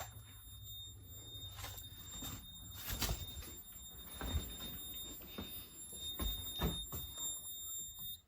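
Fire alarm control panel's piezo sounder giving a steady high-pitched tone, the panel in fire alarm after a smoke detector has been activated, with a few short knocks of handling. The tone cuts off suddenly at the very end.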